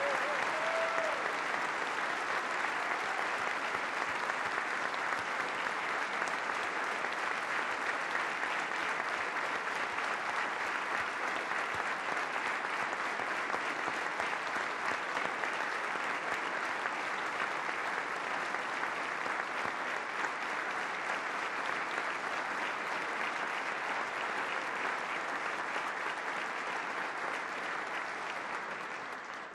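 A large audience applauding at length, a steady dense clapping that eases slightly and then falls away right at the end.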